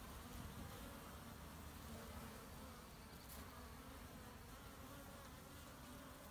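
Honey bees buzzing as they fly in and out of a hive entrance: a faint, steady hum.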